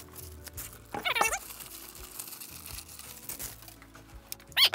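Plastic mailer bag crinkling and rustling as it is worked off a metal repeater chassis, over background music. A short warbling chirp sounds about a second in and a quick rising one near the end.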